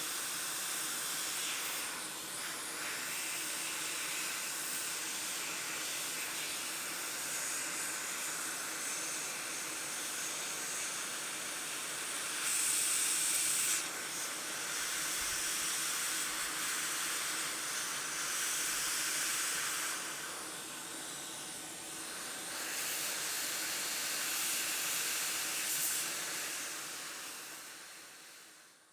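Hot air blowing from the nozzle of an ATTEN ST-862D hot air rework station: a steady hiss that swells louder a few times, then fades out near the end.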